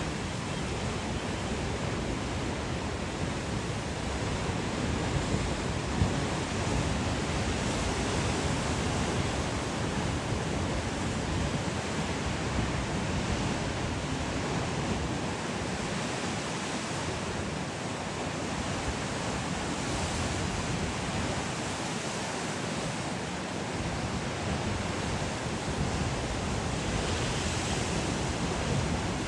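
Ocean surf: waves washing ashore in a steady, continuous rush of noise that swells slightly now and then.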